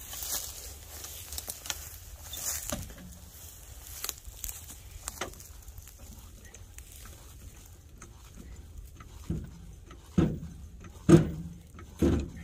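Scattered light clicks and rustling, then a series of four loud knocks about a second apart near the end.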